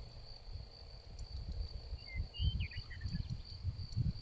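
An insect trilling steadily at a high pitch over gusty low wind rumble on the microphone, with a few short bird chirps about two seconds in.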